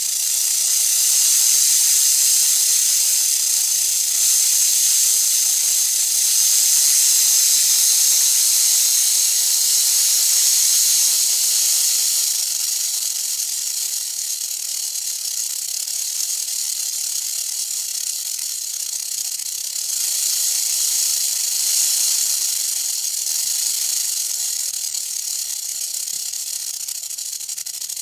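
Western diamond-backed rattlesnake shaking its tail rattle: a continuous high buzz, somewhat louder in the first half.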